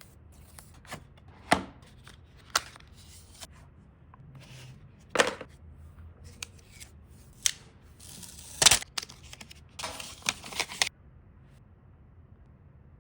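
Phone retail packaging being handled and opened: a string of sharp taps and clacks with short rustles of cardboard and paper, the loudest a longer rustle about nine seconds in, then a quick run of clicks.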